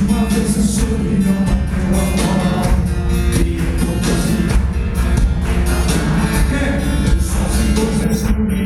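Loud music with guitar, a strong bass line and a steady beat, with singing.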